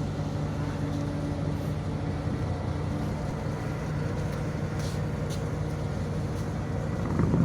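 Vehicle engine idling steadily through a hand-beaten, tugboat-style vertical chimney exhaust, a low, even drone that swells slightly near the end.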